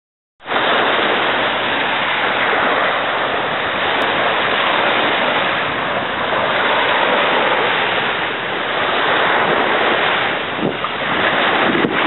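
Steady rushing noise of wind and surf, cutting in suddenly about half a second in.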